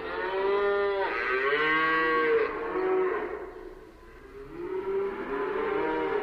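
Cattle mooing: several drawn-out calls, some overlapping, with the loudest about a second in and a quieter one near the end.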